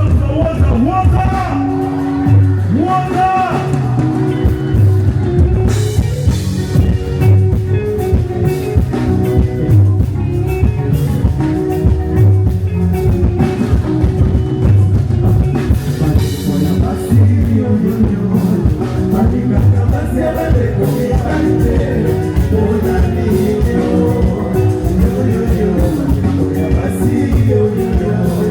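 Loud live band music with a steady beat, drums and singing.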